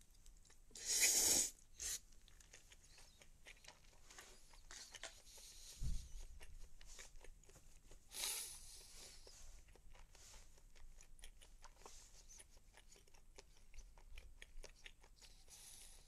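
A person chewing and crunching food close to a phone's microphone, many small crisp mouth clicks. There is a short loud noise about a second in and a dull thump near six seconds.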